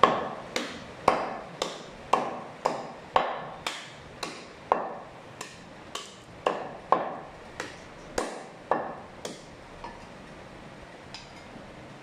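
Heavy meat cleaver chopping goat meat on a wooden chopping block: sharp chops about two a second, stopping about nine seconds in, with two faint knocks after.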